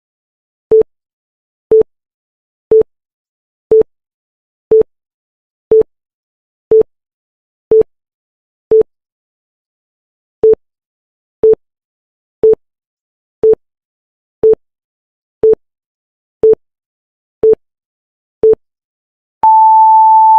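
Countdown timer beeps: short, identical mid-pitched beeps once a second, with a pause of about a second and a half near the middle, then one longer, higher beep marking zero near the end.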